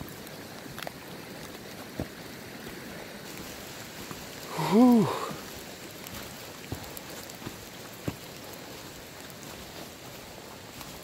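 Steady rustle of footsteps walking through dry leaf litter on a woodland trail, with a few faint ticks and snaps. About halfway through, a short wordless voice sound from the walker, its pitch rising then falling, stands out loudest.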